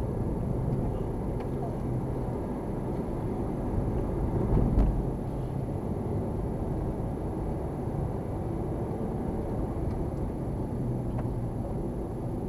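Steady road and engine rumble of a car driving, heard inside the cabin, with one low thump a little under five seconds in.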